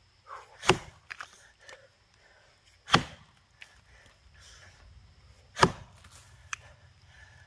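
Axe chopping into a box elder log: three heavy strikes about two and a half seconds apart, with a few fainter knocks between them.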